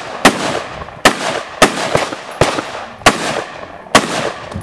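Semi-automatic rifle fired six times at a steady pace, roughly one shot every 0.7 seconds, each sharp crack trailing off in a short echo.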